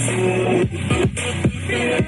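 Song with a steady electronic beat and sustained synth notes played back through a portable Bluetooth speaker, with no vocals at this point.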